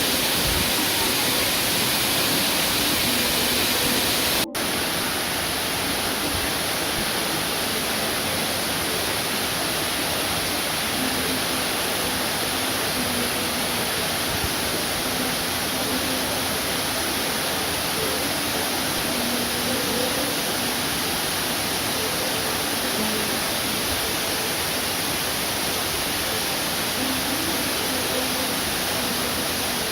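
Matang Kubah Waterfall's water rushing in a steady, loud wash of noise, with a momentary break about four and a half seconds in.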